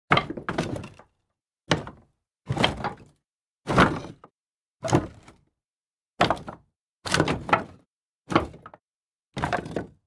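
Pieces of wood tossed down one after another, about nine times, roughly once a second, each landing with a short clatter of wooden knocks and bounces that dies away within a second, with silence between tosses.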